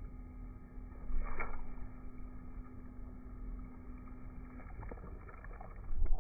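Low rumbling noise of wind and handling on a phone microphone, with a faint steady hum that stops about four and a half seconds in, a brief rustle about a second in and a loud thump near the end.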